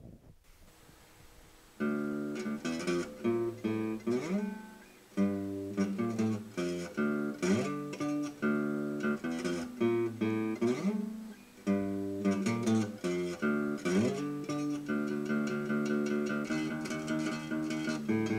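Acoustic guitar music: strummed chords with sliding notes between them, starting about two seconds in, the strumming getting quicker near the end.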